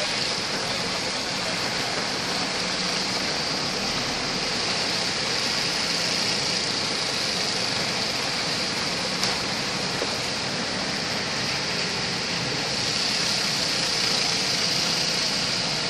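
Heavy rain and water hissing steadily around a car, heard from inside the cabin, with the car's engine running low underneath. One sharp tick comes a little over halfway through.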